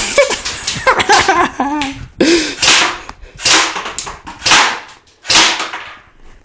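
A dog whining, with short cries that rise and fall in pitch over the first two seconds or so. After that comes a run of short hissing noises, about one a second.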